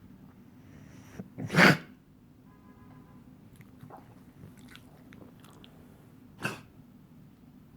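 A pet coughing: a short hack followed at once by a loud cough about a second and a half in, and one more cough near the end, with faint clicks in between.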